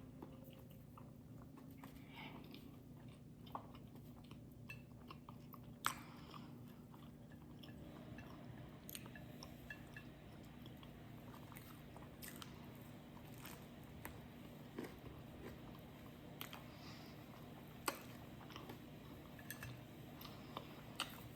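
Faint, close-up chewing and biting of food, with scattered sharp crunchy clicks, the loudest about six seconds in and near eighteen seconds, over a steady low hum.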